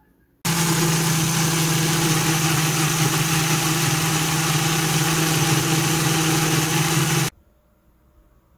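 Small personal blender's motor running steadily at speed, grinding thawed peach peels into a purée. It starts abruptly about half a second in and cuts off abruptly near the end.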